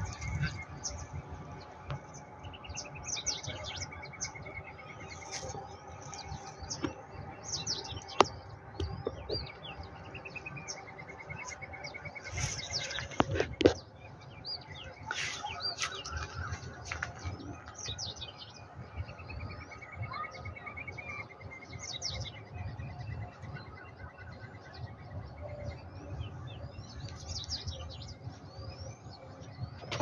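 Small wild birds chirping, with many short high calls and, three times, a long trill of rapid repeated notes that drops slightly in pitch and then holds steady. A low rumble runs underneath, broken by a couple of sharp knocks.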